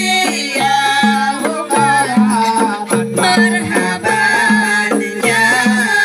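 A woman singing through a microphone and PA, accompanied by rebana frame drums beaten in a steady repeating rhythm.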